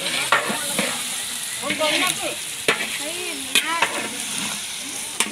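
Food frying and sizzling in a large iron kadai over a wood fire, stirred with a long-handled metal ladle that scrapes and clacks against the pan several times.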